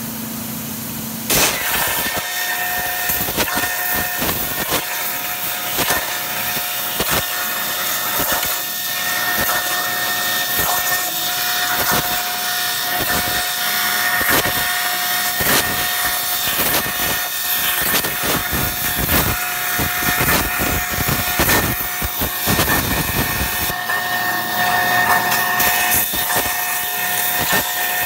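Kjellberg SmartFocus 200 plasma torch cutting steel plate: the arc fires about a second in and then runs as a loud, steady hiss and crackle with a high, even whine over it.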